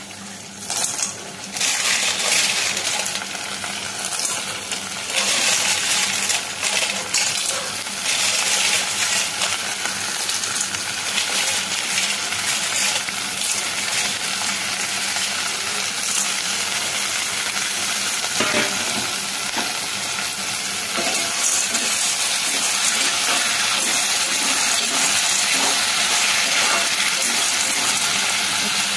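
Freshwater snails in their shells tipped into a hot kadhai of fried onion and tomato: the shells clatter against the metal about a second in, then fry with a steady sizzle, the shells clicking against each other and the pan as they are stirred.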